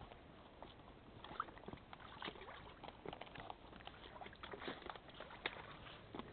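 Footsteps crunching and rustling through dry fallen leaves and sticks, an irregular crackle with a few sharper clicks.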